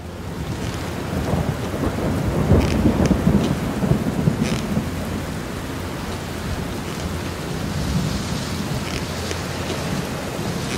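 Rain and traffic on a wet road: a steady rushing hiss with low rumbling and a few light ticks.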